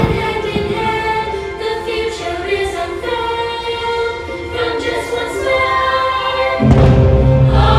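Choir singing over orchestral music. About two-thirds of the way in, the music swells louder with a deep bass entering.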